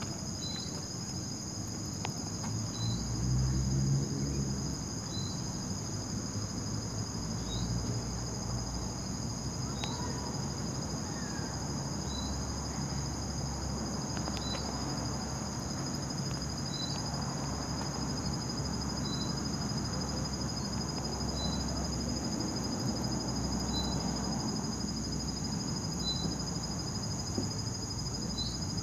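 Crickets trilling steadily at night, with a short high chirp repeating about once a second, over a low rumbling background.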